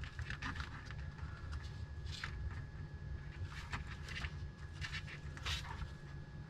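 Light clicks and scrapes of plastic parts being handled as the skeleton bird's neck mechanism (wire and tension rod) is worked by hand, with a few sharper clicks about two, three and a half, and five and a half seconds in, over a steady low hum.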